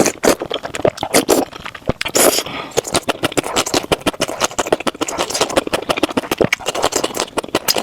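Close-miked eating: continuous rapid wet chewing and mouth clicks, a dense irregular crackle.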